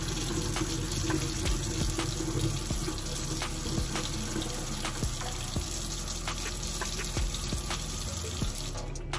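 Kitchen faucet running steadily into the sink during hand-washing of baby bottles and breast pump parts, with occasional light knocks as the parts are handled. The water noise cuts off near the end.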